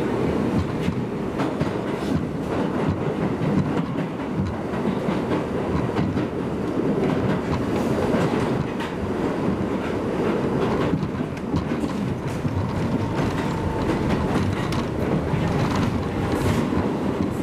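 Bombardier R62A subway train running at speed through a tunnel: a steady, loud rumble of wheels on rail, broken by the clickety-clack of short clicks as the wheels pass over rail joints.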